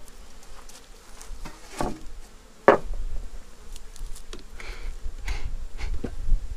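Honeybees buzzing around their hive while the hive's corrugated roof sheet is pried off and set down: scattered scrapes and knocks, the loudest a sharp knock about three seconds in. Wind rumbles on the microphone, and a few short puffs from a bee smoker follow near the end.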